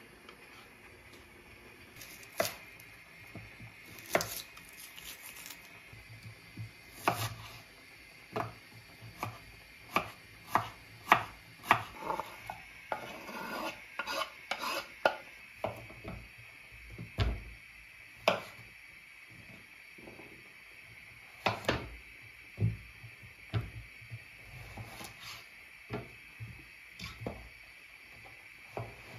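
Kitchen prep: a kitchen knife chopping vegetables on a wooden cutting board in sharp, uneven knocks, with a metal spoon scraping and clinking in an enamel pot and sliced onion scraped off the board into a frying pan. A faint steady hiss runs underneath.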